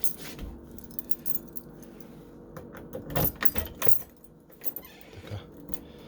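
Scattered metallic jingling and clicking over a steady low hum.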